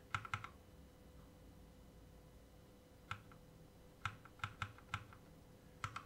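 Keys of a mechanical keyboard with Kailh Box Red linear switches being pressed: a quick run of clicks at the start, a pause, then about seven single presses spaced through the last three seconds.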